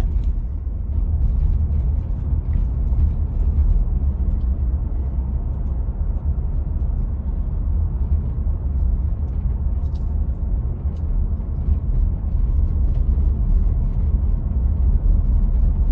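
Steady low rumble of a car's tyres and engine heard from inside the cabin while driving.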